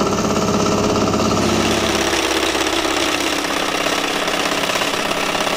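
A milling machine's cutter head skims the cast-iron face of a Mazda rotary engine end plate: a loud, steady cutting chatter over the spindle's hum. About two seconds in the sound thins out at the low end.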